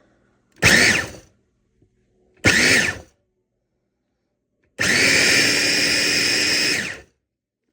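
Homeleader 300W electric food chopper running on speed 2, its blades chopping breadcrumbs and oats in a glass bowl. It gives two short pulses, then a steady run of about two seconds, the motor's whine rising as each pulse starts.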